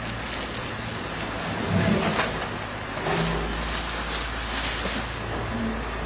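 A motor vehicle runs with a steady low rumble, mixed with the irregular crinkling and rustling of plastic bin bags of mixed household waste being handled.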